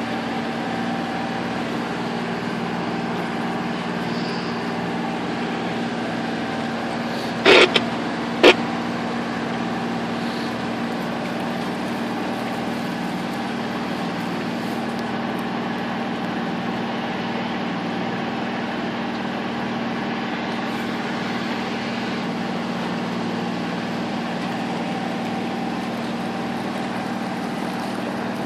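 Sailboat's engine running steadily under way, an even hum. Two sharp knocks a second apart, about seven seconds in, stand out above it.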